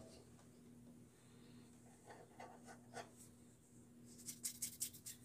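Near silence: faint room hum, with a quick run of small clicks about four seconds in from hands handling the bandsaw's plastic housing.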